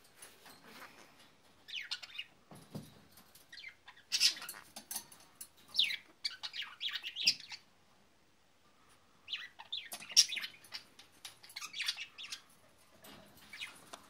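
Pet conure chirping in short bursts of high chirps and squeaks, with a brief quiet pause a little past the middle.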